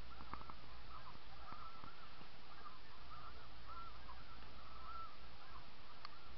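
Snow geese calling: a steady run of short, high yelping calls, about two a second and partly overlapping, over a low steady rumble.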